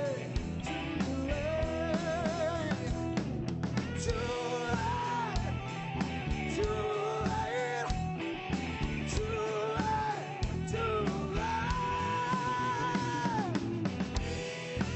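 Rock band playing an instrumental passage: a wavering lead melody with bends and slides over guitar, bass and drums.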